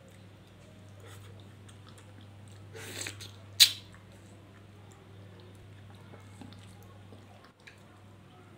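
A person biting into and eating a piece of ripe papaya, with a short noisy bite about three seconds in followed by one sharp, loud mouth sound. A steady low hum runs underneath.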